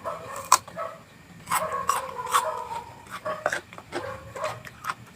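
Crisp crunching clicks from raw vegetables being bitten and chewed, with domestic animals calling in the background, one drawn-out call in the middle.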